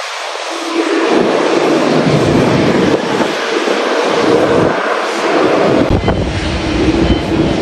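Boeing 787-9 airliner's Rolls-Royce Trent 1000 jet engines running, mixed with strong wind gusting on the microphone, so the low rumble comes and goes; from about six seconds in the deep rumble holds steady.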